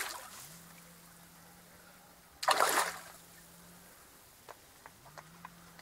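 A hooked common carp thrashing at the water's surface, with one sharp splash about two and a half seconds in, followed by a few faint clicks.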